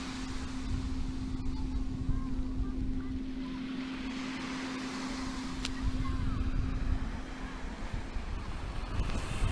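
Wind buffeting the microphone over waves washing onto a sandy beach, with a steady low hum that stops about seven and a half seconds in.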